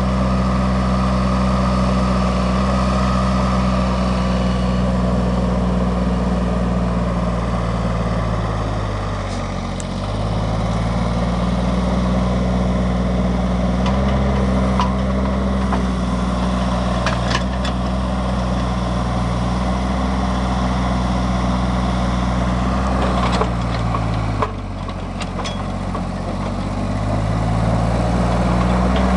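Hanix 037 mini excavator's diesel engine running. Its pitch sags and recovers twice, about ten seconds in and again near twenty-five seconds, with a few sharp clicks in between.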